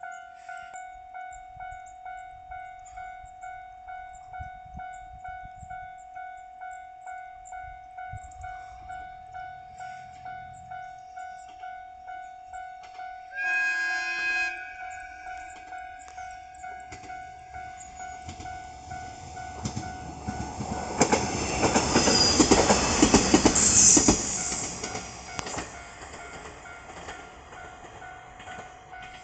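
Japanese level-crossing warning bell ringing steadily, about two strokes a second. About halfway through, a train horn sounds for about a second. A Kitakami Line diesel railcar then passes over the crossing with clacking wheels, growing loud, then fading, while the bell keeps ringing.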